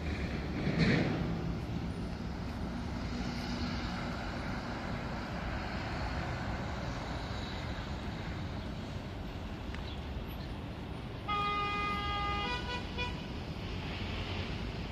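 Steady hum of distant city traffic, with a short loud rush about a second in. Near the end a vehicle horn honks for about a second and a half, shifting pitch once partway through.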